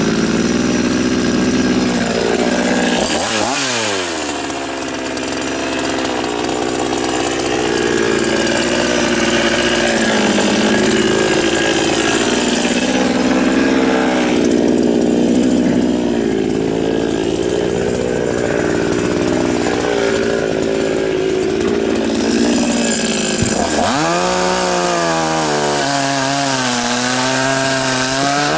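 Chinese 52cc two-stroke chainsaw with an 18-inch bar running hard and cutting through willow logs. Its engine pitch dips and recovers as the chain bogs in the wood, with a sharp rev-up near the end followed by more wavering under load.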